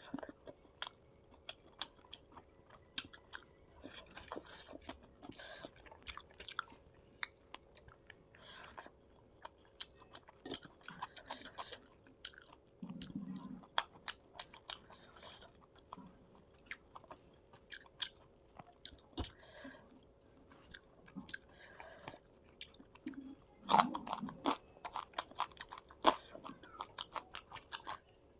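Close-miked chewing and crunching of fried fish, with wet mouth clicks and smacks coming irregularly throughout and a louder burst of chewing near the end. A faint steady hum runs underneath.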